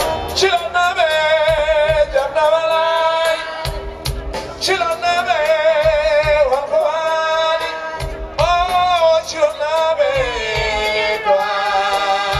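Live band music: a man singing long, wavering held notes in three drawn-out phrases over guitar and drums with a steady beat.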